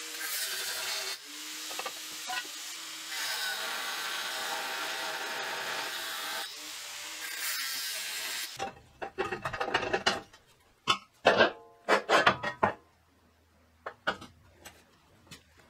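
Angle grinder cutting through thick rusty steel plate, running steadily with a few brief dips as it bites, then stopping about eight and a half seconds in. A quick run of loud, ringing metal clanks follows as the cut-off steel piece is moved, then a few lighter knocks near the end.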